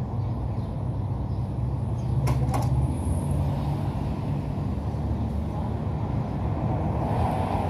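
A motor running with a steady low hum. Two quick clicks come a fraction of a second apart about two seconds in.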